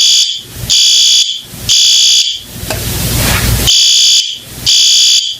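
Fire alarm going off: loud, shrill beeps about half a second long, in groups of three. A loud noisy rush fills the pause between the groups.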